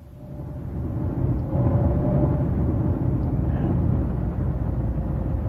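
Car cabin noise at night: a steady low rumble of engine and road, fading in over the first second.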